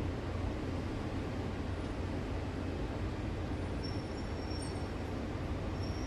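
Steady low rumble of distant city background noise, with a few faint, brief high-pitched tones about four seconds in.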